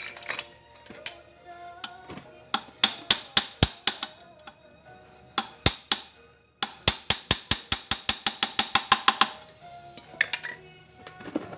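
Sharp metal-on-metal hammer strikes on a tool set against a motorcycle's centrifugal clutch: a run of about eight blows, a pause, two more, then a quick run of about twenty, over background music.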